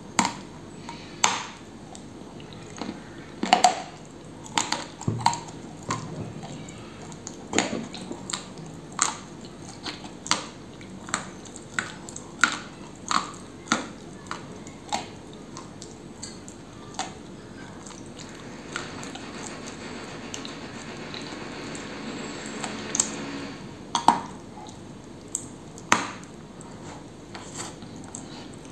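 Close-miked biting and chewing of dry, crumbly edible clay (Turkestan clay) coated with a clay cream: sharp, crisp crunches at irregular intervals, with a stretch of softer, steady grinding chews about two-thirds of the way through.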